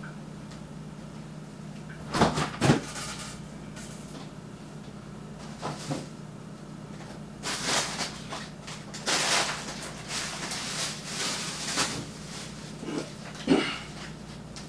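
Kitchen handling sounds: two loud knocks about two seconds in, stretches of hissing clatter in the middle, and another sharp knock near the end, like cupboards, dishes or items being moved and set down, over a steady low hum.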